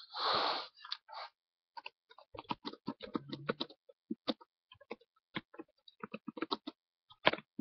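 Computer keyboard being typed on: irregular, uneven key clicks, several a second. A short rush of noise comes right at the start.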